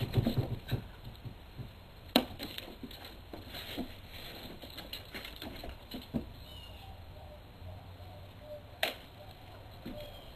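A cat's paws thumping and scrabbling as it leaps off a homemade cat wheel, a quick run of knocks at the start. Then scattered softer taps and knocks, with a sharp knock about two seconds in and another near the end.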